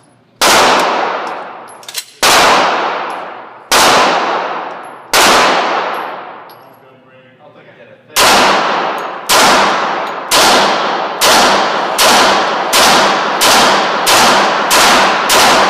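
Glock 20 10mm Auto pistol fired in an indoor range, each shot ringing out with a long echoing tail: four shots about a second and a half apart, a pause of about three seconds, then about ten more shots coming faster and faster.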